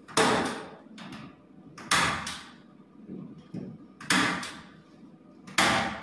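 Four loud knocks, about one every one and a half to two seconds, each ringing on and echoing in the bare concrete interior of a swiftlet house while construction work goes on inside; a fainter knock falls between the second and third.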